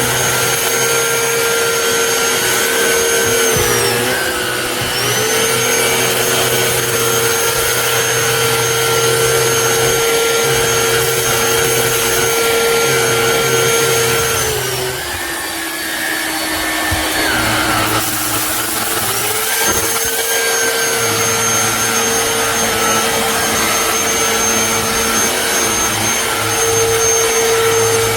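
Black+Decker Powerseries+ 20V MAX cordless stick vacuum running with a steady motor whine. Its pitch sags briefly about four seconds in, and again for several seconds past the middle, before climbing back up.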